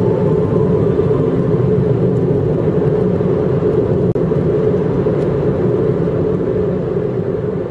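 Steady rumble of a car driving along a road, engine and tyre noise, with a brief drop-out about four seconds in; it begins to fade near the end.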